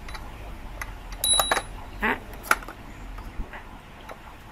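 Light hammer taps on a steel rod, seating the plastic drum pulley wheel of a table-top wet grinder onto its bearing. There are a handful of separate metallic taps, and one cluster rings briefly about a second in. They are tapped lightly because the plastic wheel could crack.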